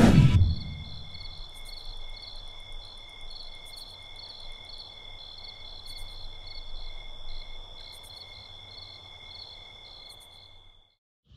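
Night insects calling: one holds a steady high trill while others pulse in a regular rhythm, two or three times a second. A brief low thump comes at the very start, and the calls cut off suddenly near the end.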